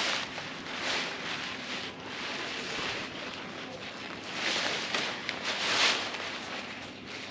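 Nylon tent fabric rustling and swishing as it is handled during pitching, in irregular swells with the loudest around the middle.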